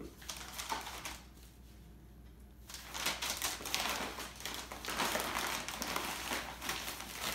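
Sheets of packing paper rustling and crinkling as they are folded over a stack of saucers. A few light rustles at first, then steady, louder crackling of the paper from about three seconds in.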